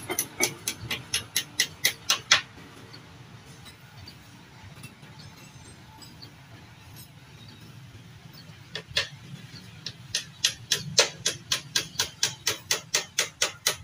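Level-crossing warning bell ringing in quick, even strokes, about four a second, stopping a couple of seconds in. It starts again about nine seconds in and keeps going.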